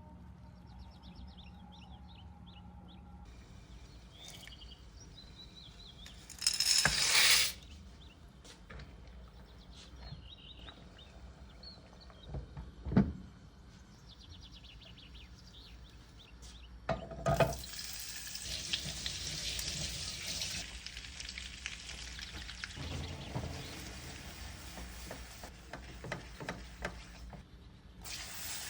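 Food frying in a hot pan: a steady sizzle sets in a little over halfway through. Before it come a short rush of noise and a couple of sharp knocks from cookware, with faint bird chirps in the background.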